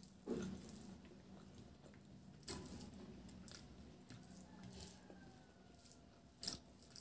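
Soft mouth sounds of chewing, and fingers squishing rice mixed with kochu saag (taro-leaf greens) on a plate. Three sharper smacks or clicks stand out: about half a second in, about two and a half seconds in, and near the end.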